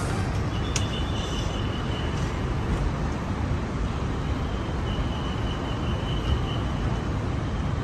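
Steady rushing ambience inside an Airbus A350 passenger cabin, the air-conditioning and ventilation running, with a faint high tone coming and going.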